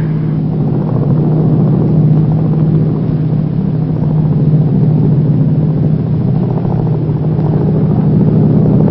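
Loud, steady drone of aircraft engines at an open jump door, one low, unchanging hum under a rush of air.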